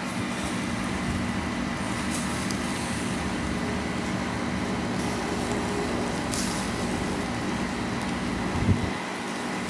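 Jerk-sauced chicken thighs sizzling on a charcoal grill as sauce is brushed on and drips onto the hot coals, a steady hiss that flares briefly about two seconds and six and a half seconds in. A steady low hum runs beneath it.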